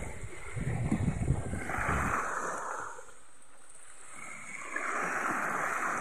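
Small waves washing onto a sandy beach, the hiss of the wash swelling about two seconds in and again near the end, with a quieter lull between. Wind rumbles on the microphone in the first second.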